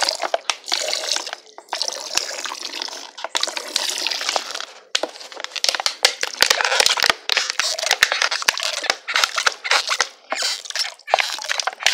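Alcohol vinegar trickling from a glass bottle into frothy soap mixture in a plastic tub: a splashing hiss with many short crackles and ticks.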